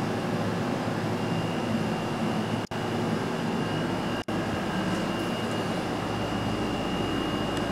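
Steady mechanical hum and hiss with a thin high whine, like a fan or air-conditioning unit running. It cuts out for an instant twice.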